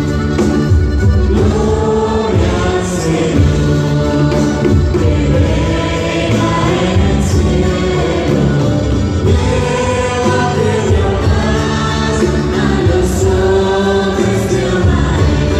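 Choir singing a Catholic worship song over instrumental accompaniment with a steady bass line.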